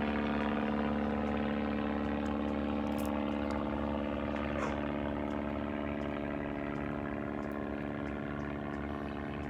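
A steady low mechanical hum, with a few faint crunches of kettle corn being chewed.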